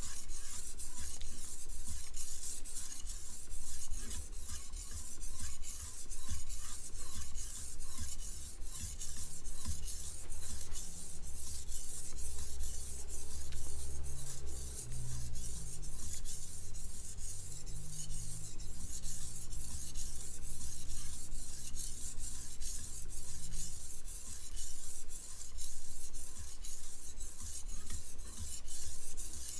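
Chef knife blade stroked back and forth across a wet whetstone, a steady run of scraping strokes on the second side of the edge while a burr is being raised.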